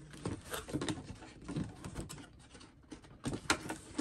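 Cardboard box insert and plastic packaging being handled: scattered light taps, scrapes and rustles, with a quieter stretch a little past the middle.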